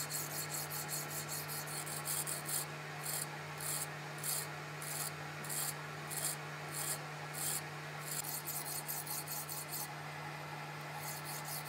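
Flat hand file rasping against a small steel firing pin turning in a lathe. Quick strokes at first, then slower strokes about every half second, then quick strokes again, with a brief pause near the end. The lathe motor hums steadily underneath.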